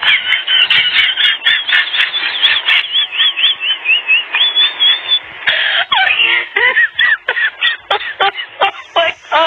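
Rapid, repeated high-pitched squeals and yelps from puppies and a kitten play-fighting, several cries a second. After about five seconds the cries come more unevenly and some are lower.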